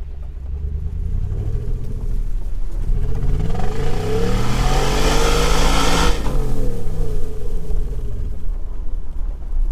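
Audi S4's V8 engine, which has a knocking fault, revved once. The revs climb slowly for about five seconds, peak about six seconds in, then drop quickly back to idle.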